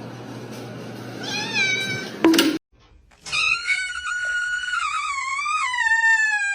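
A domestic cat gives a short meow over background noise, followed by a sharp click. After a cut, a cat gives one long, drawn-out meow whose pitch falls near the end.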